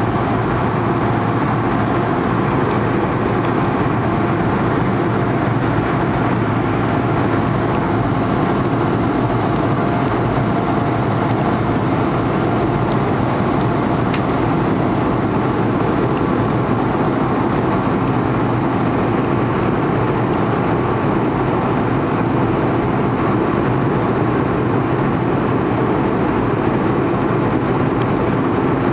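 Steady cabin noise of an airliner climbing after take-off: engine and airflow drone heard from inside the cabin, even and unchanging, with a faint high whine over it.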